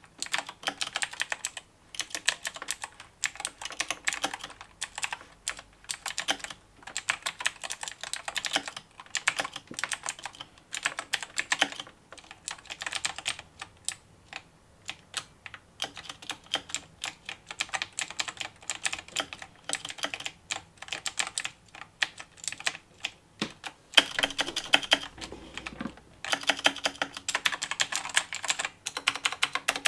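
Mechanical keyboard being typed on: fast runs of key clicks in bursts of a few seconds, broken by short pauses.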